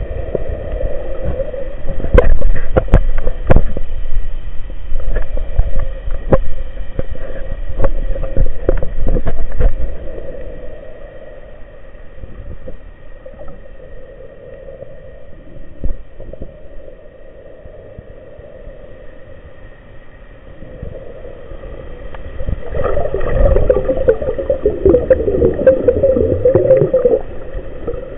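Underwater sound picked up by a diver's camera in its waterproof housing: a low rumble of moving water with many sharp clicks and knocks in the first ten seconds, then a quieter stretch, then a louder bubbling gurgle near the end.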